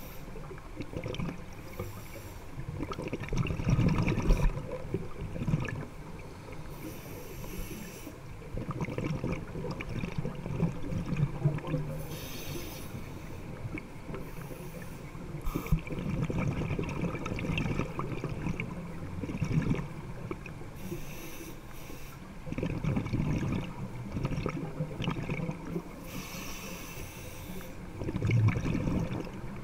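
Scuba diver breathing through a regulator underwater: a hiss on each inhalation and a burst of bubbling on each exhalation, repeating every few seconds.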